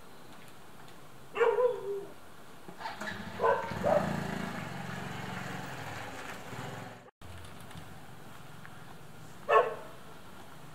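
A dog barking in short single barks: one about a second and a half in, two close together around four seconds, and one more near the end. A steady low rumble runs under the middle stretch.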